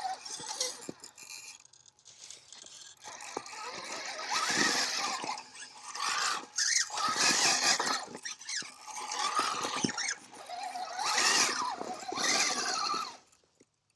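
Axial SCX6 RC crawler's electric motor and gear drive whining in about five bursts of throttle, the pitch rising and falling with each burst.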